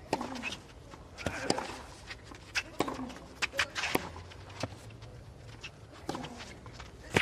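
Tennis rally on a clay court: crisp racket-on-ball strikes about every one and a half seconds, several with a short falling grunt from the player as he hits.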